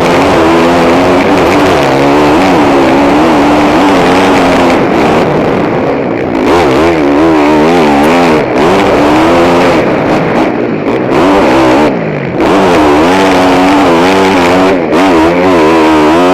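KTM 450 SX-F four-stroke motocross engine revving up and down under hard throttle on the track, heard from a helmet camera. The pitch rises and falls again and again, with several brief throttle-off dips.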